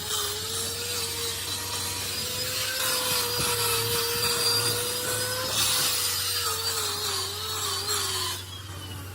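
Small electric power tool with an abrasive or wire wheel running against a metal part, its motor pitch wavering under load over a scratchy rubbing hiss. It slows and cuts off near the end.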